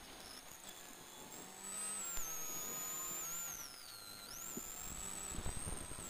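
Mitsubishi Lancer Evolution VI rally car's turbocharged four-cylinder engine running at speed on a gravel stage, heard faint and thin through the in-car intercom feed. Over it runs a high electrical whine that dips in pitch about four seconds in and climbs back, the intercom interference.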